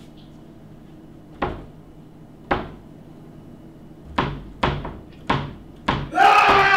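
A restroom door yanked by its metal pull handle, banging against its latch in six sharp thuds: two about a second apart, then four in quicker succession, as if it is stuck shut. A louder, harsher noise follows near the end.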